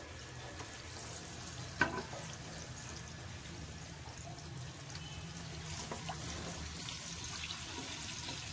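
Oil and butter sizzling in a non-stick wok while a wooden spatula stirs and scrapes, over a steady low hum. One sharp knock about two seconds in, probably the spatula against the pan.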